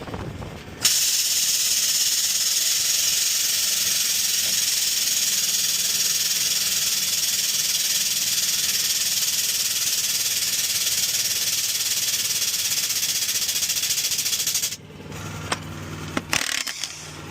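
Aerosol spray can hissing in one long continuous spray, starting about a second in and cutting off suddenly near the end.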